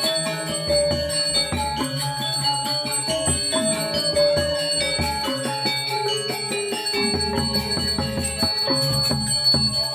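Balinese gamelan music playing steadily: bronze metallophones striking a dense run of short, bell-like notes over a lower pulsing part.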